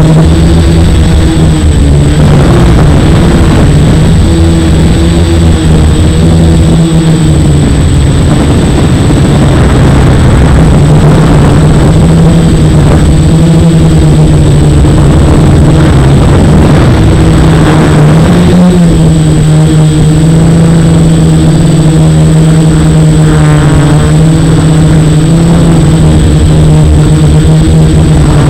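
F450 quadcopter's brushless motors and propellers buzzing in flight, the pitch wavering up and down as the throttle changes, with a steady thin high whine above it.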